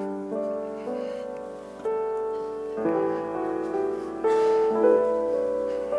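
Slow keyboard music played in held chords that change every second or so.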